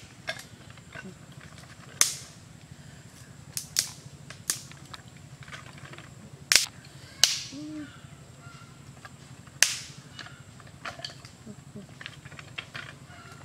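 Dry wooden sticks being snapped by hand, giving about seven loud, sharp cracks at irregular intervals, with fainter clicks of sticks being laid onto a pile.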